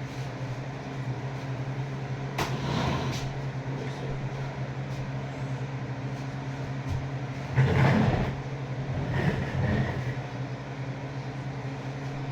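A steady low mechanical hum, like a fan or air conditioner, runs underneath. A single sharp click comes about two and a half seconds in, and two louder bursts of rustling, handling noise come around eight and nine and a half seconds.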